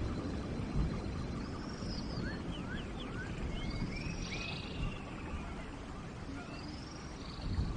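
Steady rain in a forest with several birds calling over it: a few quick rising whistles and high arching chirps scattered through.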